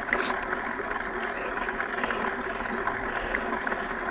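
Mountain bike on a dirt trail: steady rolling and rushing noise with scattered small clicks and rattles.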